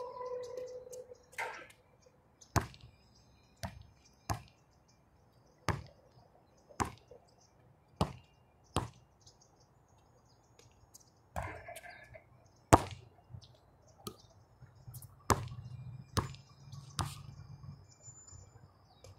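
A basketball bouncing on a hard outdoor court: about a dozen separate thuds with uneven gaps between them, the loudest a little past halfway.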